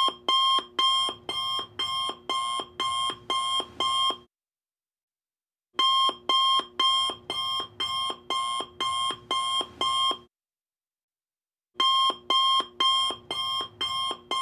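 Alarm clock beeping: quick, evenly spaced beeps, about two and a half a second, in three runs of about four seconds each with short pauses between them.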